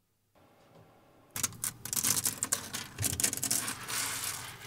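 Flexible, articulated 3D-printed plastic dragon being flexed and wiggled in the hand: its jointed segments rattle and click rapidly against each other, starting about a second in.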